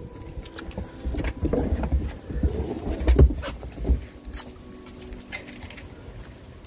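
Lycan Shepherd wolfdog puppies tussling over a raw whole chicken, with low grumbling and scuffling from about one to four seconds in, then quieter.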